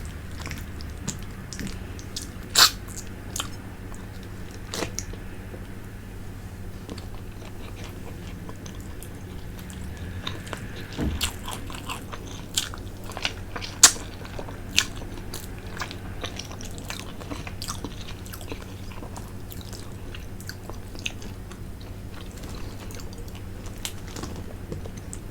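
Close-miked eating of fish head from tinola: chewing with scattered sharp smacks and clicks. A steady low hum runs underneath.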